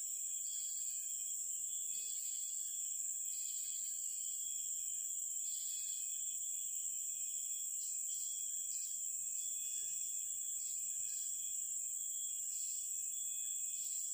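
Insects calling in chorus: a steady, shrill, high drone, with a second call that keeps switching on and off every half-second to second or so, and a few faint steady tones beneath.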